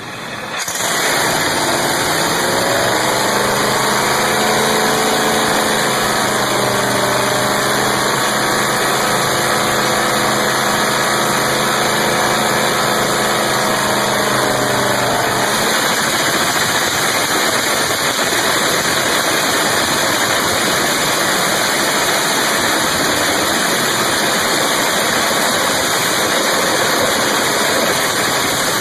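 Turbocharged drag-race car engine running steadily and loudly, with a steady low hum under a rushing noise that drops away about halfway through, leaving only the rushing noise.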